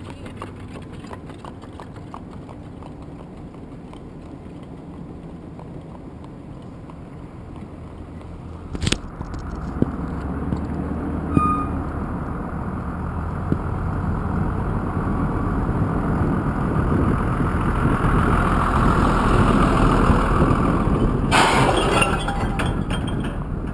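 Light clip-clop of a horse's hooves on pavement at first, then, after a sharp click about nine seconds in, a car driving slowly: steady engine and road noise that grows louder, with a rush of wind noise near the end.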